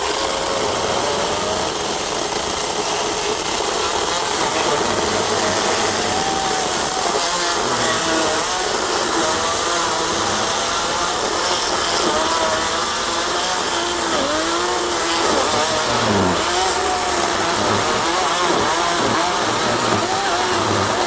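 Ego 16-inch 56-volt cordless chainsaw cutting through a dry log. Its electric motor's whine wavers and dips in pitch as the chain bites into the wood, dropping most deeply about two-thirds of the way through.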